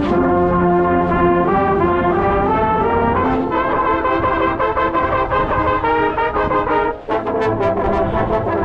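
Marching band brass playing loud, full chords up close, with a trumpet right at the microphone and the notes changing often. The playing breaks off briefly about seven seconds in, then comes back with sharp accented notes.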